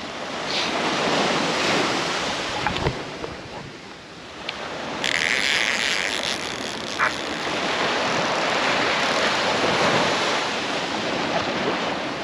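Surf breaking and washing up the beach, swelling and fading with each wave, with wind buffeting the microphone.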